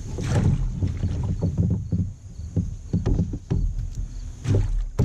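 A freshly caught smallmouth bass thrashing while it is unhooked in a plastic fishing kayak: irregular knocks and rattles against the hull and gear over a low rumble, with a sharp knock near the end.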